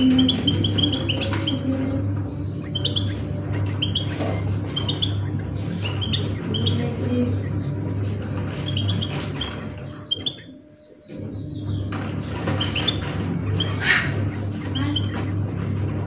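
Caged songbirds chirping: short, high chirps repeating once or twice a second over a steady low hum. The hum and chirps drop away briefly about two-thirds of the way in.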